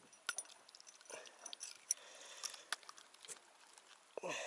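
Faint scattered clicks and rustles of a freshly caught lenok being handled to work the hook out of its mouth, with a brief voice sound near the end.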